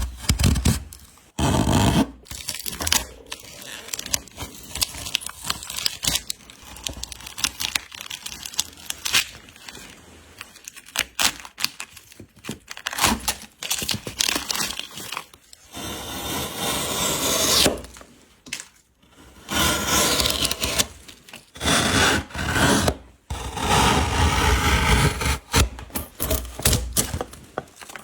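Hand work on wood: irregular scraping and rasping strokes with occasional sharp cracks and knocks. In the second half come several longer stretches of steady scraping, each lasting a second or two.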